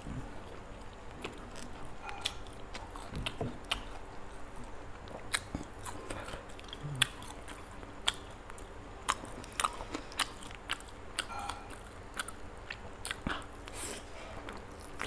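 Close-miked chewing and biting of roasted chicken: irregular sharp mouth clicks and small crunches, spaced a second or so apart.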